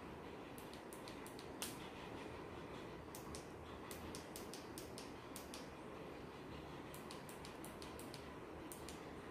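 Faint clicks of the buttons on a ring light's inline remote being pressed again and again, stepping its brightness and light mode. They come in short runs of several quick presses, the sharpest about a second and a half in.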